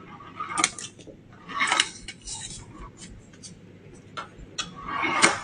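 Stainless steel shower-door roller run back and forth by hand along a stainless steel rail profile: a few short, soft metallic rolling swishes with light clicks between them, the last pass the loudest. It runs smooth, with no grinding.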